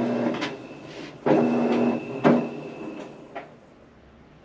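Whirlpool washer's motor turning the drum in short pulses during its recalibration cycle: a steady hum lasting about a second at a time, with a sharp click as each pulse starts and stops, dying away near the end.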